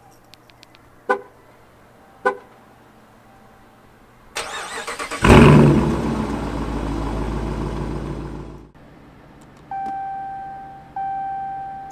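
Two short horn chirps as the key fob is pressed, then the 2019 Dodge Challenger R/T's 5.7-litre HEMI V8 is remote-started: a brief crank, a loud flare as it catches, and a steady fast idle that cuts off suddenly. Near the end a cabin chime rings three times, about a second apart.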